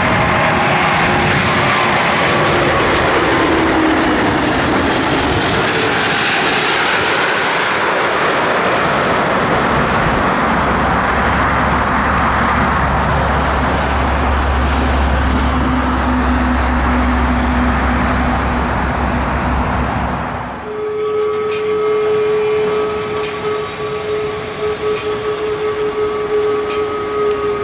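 Airbus A340 four-engine airliner passing low overhead on final approach: loud jet engine noise whose whine falls in pitch as it goes by. It is followed by a sustained deep rumble as the airliner rolls out on the runway after touchdown.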